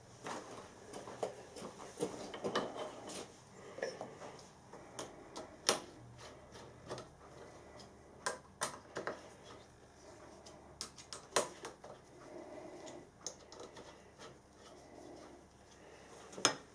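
Irregular light metallic clicks and small knocks, about one or two a second, as a quick-change tool post and its tool holder on a metal lathe are handled and adjusted by hand.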